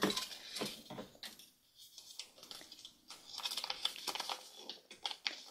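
Hands handling a small plastic Kinder Egg toy and its parts: a run of light clicks, taps and crinkles, thickest a little past halfway.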